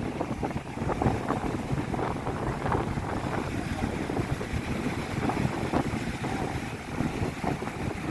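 Strong wind buffeting the microphone: a steady low rumble with irregular gusts and pops.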